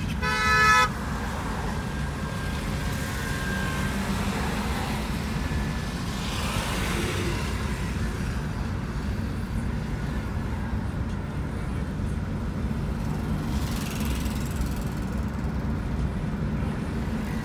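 Steady road and engine rumble of a moving car, heard from inside the cabin, with a vehicle horn sounding once, loud and short, right at the start.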